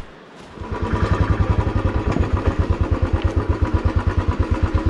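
Royal Enfield Classic 350's single-cylinder engine starting about half a second in and settling into a steady idle, with a quick, even beat of exhaust pulses.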